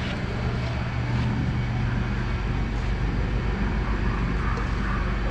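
Octane FD25 diesel forklift engine idling steadily, with a few faint knocks.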